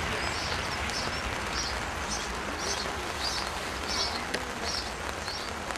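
A bird calling with a short, high chirp repeated about twice a second, over a steady low rumble.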